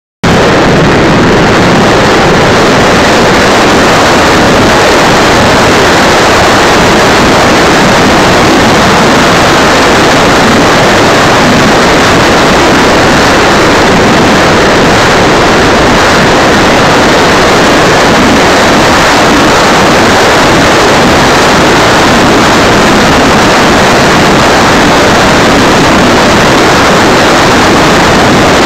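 Steady rush of airflow and twin 90 mm electric ducted fans, picked up by a camera mounted on the flying model jet. Very loud and unchanging, it cuts in suddenly at the start.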